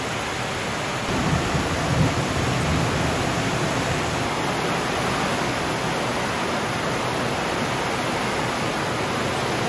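A steady, even rushing noise with no distinct tones or knocks, a little louder between about one and three seconds in.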